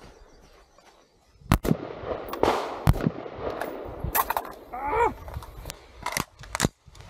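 Several rifle shots from a CQ-A M4-type carbine in .223 Rem / 5.56x45, sharp single reports at irregular spacing. There is also a short falling tone about five seconds in.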